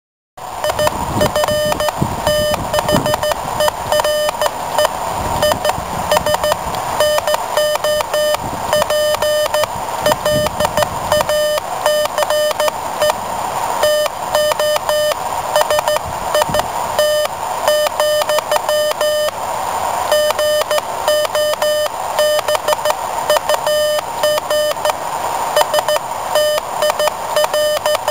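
Morse code sent by hand on a WB9LPU GoBug semiautomatic 'bug' key, heard as a sidetone beep keyed on and off in fast strings of dots and dashes.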